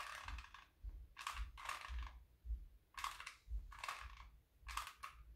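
Faint, short rustles and crinkles, about two a second, from hands squeezing cotton balls and working a glue gun while gluing, with soft low bumps of handling.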